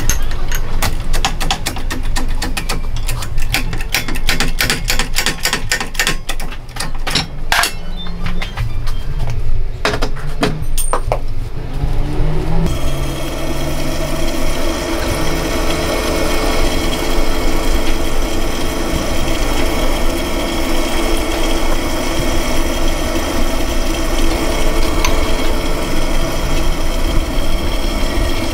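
Rapid sharp metallic clicks and clinks over a low rumble as a motorbike crank half and crankpin are handled on a hydraulic press. About 12 seconds in, this gives way to a steady workshop machine hum with a faint whine.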